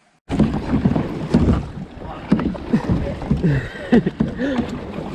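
Water sloshing and gurgling around a kayak, with irregular knocks and wind on the microphone, starting abruptly just after the start.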